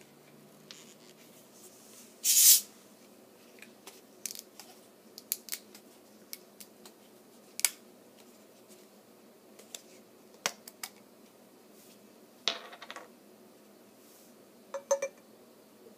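A beer bottle being handled and its closure worked open by hand: scattered small clicks and scrapes, with a short loud rasp about two seconds in and a smaller one about three-quarters of the way through.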